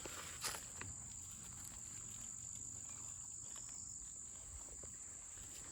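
Crickets chirring steadily in one continuous high tone, with a faint click about half a second in.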